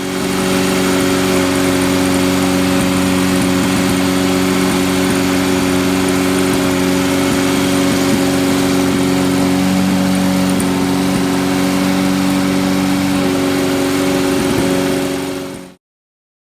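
An engine running steadily at a constant speed with an even, unchanging tone, cutting off abruptly near the end.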